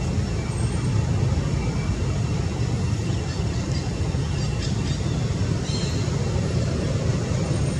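Steady low rumble of road traffic and vehicle engines, with a few faint short high chirps about six seconds in.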